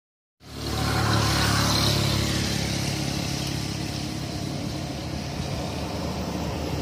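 A motor engine running steadily: a low hum under a broad hiss, fading in about half a second in.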